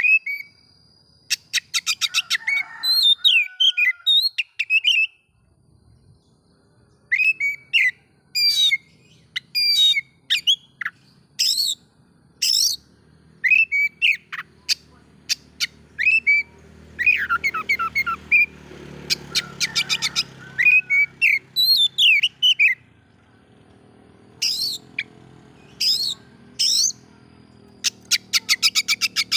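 Oriental magpie-robin (kacer) singing a heated, varied song of the kind meant to provoke other magpie-robins. Phrases of rapid rattling trills and sharp downslurred whistles repeat with short pauses between them.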